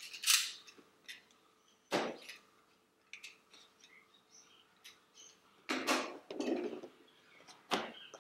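Cardboard box and packaging being opened and handled: a series of short scrapes, clicks and rustles, the loudest near the start, with a longer rustling stretch about six seconds in.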